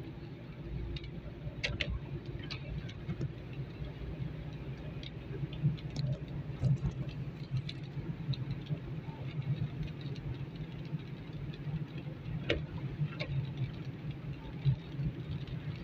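Inside a moving car on a wet road: a steady low rumble of engine and tyres, with scattered, irregular ticks of raindrops striking the windscreen.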